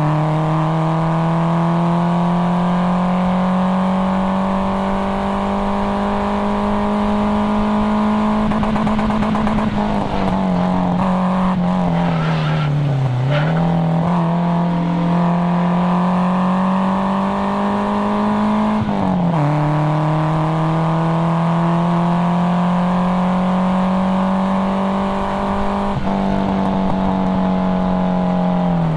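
A Nissan 240SX's KA24DE inline-four being driven hard on track. Its pitch climbs steadily as it pulls, falls and wavers for a few seconds in the middle as the car slows through a corner with a brief tire squeal, dips sharply again about two-thirds of the way through, then climbs once more.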